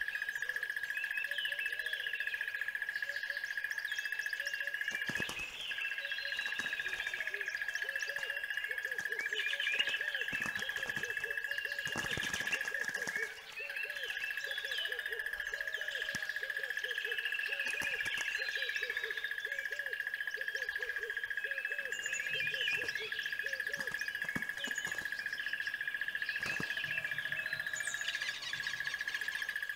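A chorus of many small birds chirping and singing over a steady high-pitched drone. Through the middle there is a run of low, soft hooting calls.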